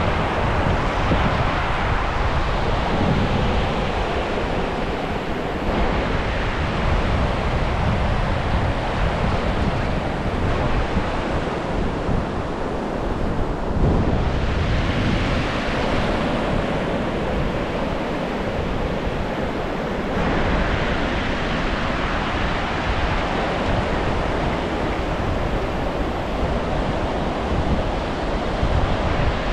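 Ocean surf breaking and washing on the shore in slow, rising and falling surges, with wind rumbling on the microphone.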